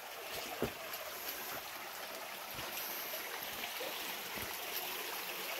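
Small rocky creek running steadily over stones, with a few soft footsteps on the leaf-covered trail about every couple of seconds.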